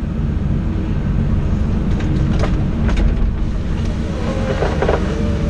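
Engine of a small logging machine running steadily with a low rumble, heard from inside its cab.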